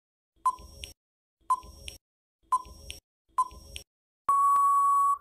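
Countdown timer sound effect: four short electronic beeps about a second apart, then one long steady beep lasting about a second that closes the countdown.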